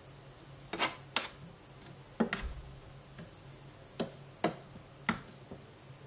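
Metal spoon knocking and clinking against the plastic bowl of a food processor while stirring honey into thick peanut butter: about seven sharp, irregularly spaced knocks over a faint low hum.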